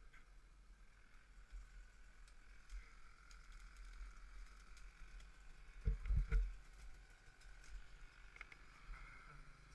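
Quiet, faint background with a few light clicks and two dull thumps close together about six seconds in.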